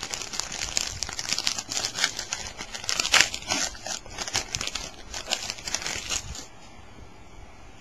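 A trading-card pack wrapper being torn open and crinkled, a dense run of crackling that stops about six seconds in.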